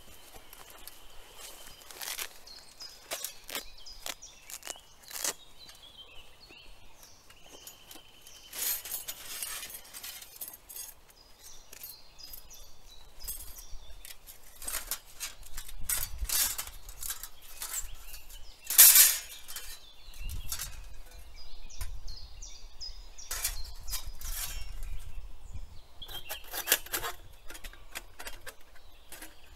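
Birds calling, including a steady high whistle heard twice near the start, over a string of close sharp clicks and knocks, the loudest about two-thirds of the way through.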